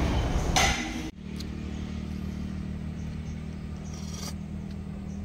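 Busy eatery noise for about a second, then after a sudden cut a steady low hum of a Suzuki car's engine idling, heard from inside the cabin with the driver's door open. A short slurp of soup comes about four seconds in.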